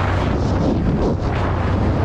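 ATV engine running as the quad rides along, mostly buried under heavy wind rumble and buffeting on the action camera's microphone, with a steady low drone.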